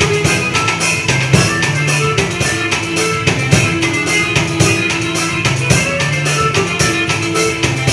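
A forró song playing, with a drum kit played along to it: a steady, even beat of drum and cymbal hits over held melody notes.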